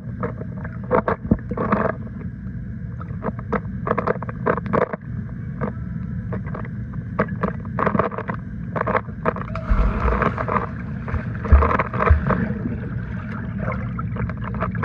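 Swimming-pool water sloshing and bubbling, heard muffled, over a steady low rumble with many irregular clicks and knocks.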